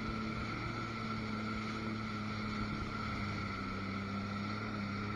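Jet ski engine running at a steady speed: a constant drone with a high whine on top and no change in pitch, over water noise.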